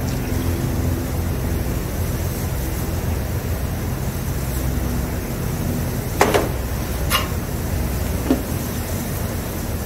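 Steady low hum of shop ventilation, with three short, sharp knocks a little past the middle from the paint can and stir stick being handled.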